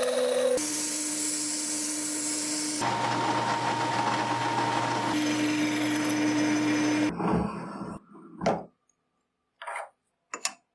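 A power tool running with a steady whine in three spliced stretches, its pitch changing at each cut, then stopping; near the end come a few brief taps and rubs.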